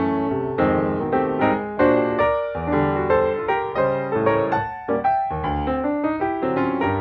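Background piano music: a gentle melody of struck notes, each fading away, two or three a second.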